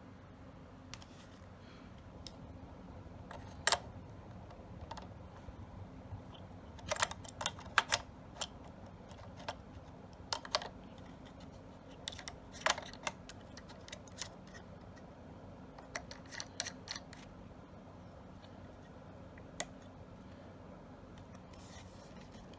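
Scattered sharp clicks and clacks of Beretta A400 shotgun parts being handled and fitted, irregular, with a few louder clacks in clusters, over a faint steady hum.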